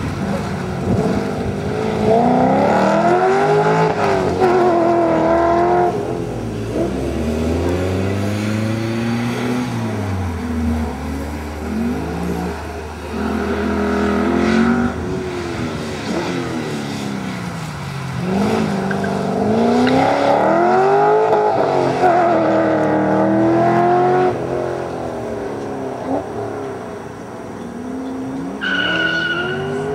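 Holden VT SS Commodore's V8 accelerating and backing off again and again, its engine note rising and falling in several surges. A short high squeal comes near the end.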